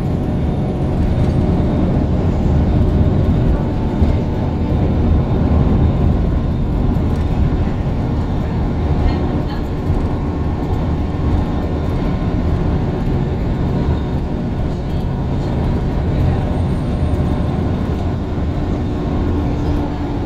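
Bus engine running as the bus drives along, heard from inside the passenger saloon: a steady low drone with road noise, the engine note shifting a little partway through.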